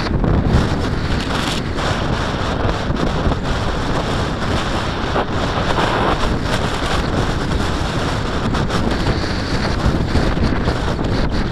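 Steady, loud rush of wind over the microphone of a camera mounted on a Reaper 60 RC glider flying fast while dynamic soaring.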